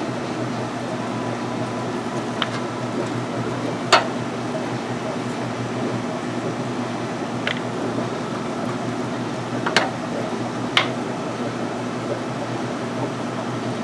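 Steady mechanical hum, with five light clicks and knocks spread through it, the loudest about four seconds in.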